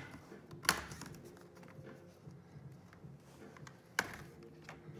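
Plastic snap clips of an HP Pavilion 15 laptop's bottom case popping loose as a plastic pry bar is worked along its back edge: two sharp clicks, about a second in and near the end, with fainter ticks between.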